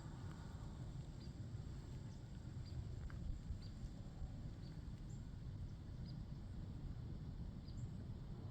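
Breeze rumbling on the microphone, with a small bird's faint high chip notes repeating roughly once a second.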